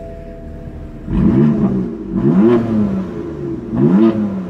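BMW M4 convertible's twin-turbo straight-six with an M Performance exhaust, idling and then revved in three quick throttle blips a little over a second apart, each rising and falling in pitch. Heard through the open driver's door.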